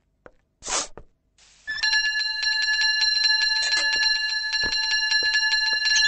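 A bell rings loudly and continuously from about two seconds in, several steady tones with a fast, even rattle of the striker. Before it come a few faint clicks and a short hissing burst.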